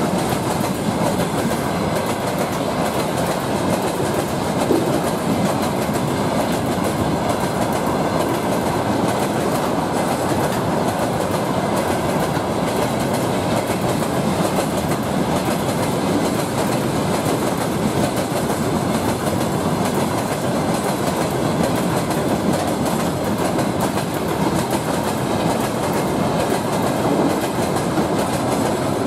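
Freight train wagons rolling past at speed, a steady, loud rumble of steel wheels on rail with rapid clicking as the wheels cross the rail joints.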